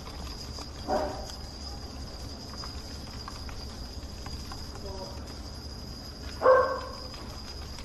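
Two short voiced calls, about five and a half seconds apart, the second louder, over a steady low hum and a thin high whine.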